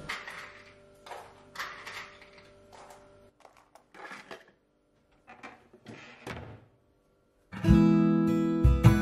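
Light knocks and rustles of small objects being handled and set down in a cabinet, then, about three-quarters of the way in, loud strummed acoustic guitar music starts suddenly and carries on.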